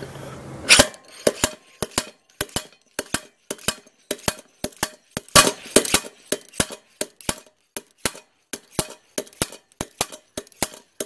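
Slide hammer bearing puller clanking metal on metal, with about three sharp strikes a second starting about a second in. It is pulling a high-mileage rear wheel bearing out of a Suzuki DR650 hub.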